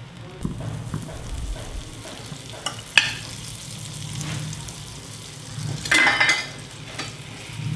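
Butter and a bread slice sizzling gently in a hot nonstick frying pan. A sharp tap comes about three seconds in and a brief louder rustle about six seconds in.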